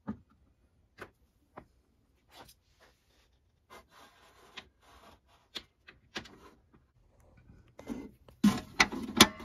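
Scattered light clicks and knocks of hands working among metal battery terminals and cables, then, near the end, a quick run of loud sharp clicks and clunks as the knob of a cheap 24-volt battery disconnect switch is turned.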